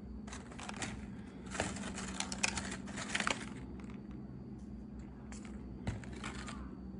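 Stiff plastic PP strapping bands of a woven basket rustling and clicking against each other as the basket is handled, in three short spells.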